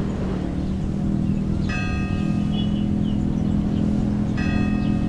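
A low, steady droning hum with a bell-like chime struck twice over it, about two and a half seconds apart, each strike ringing on and fading slowly.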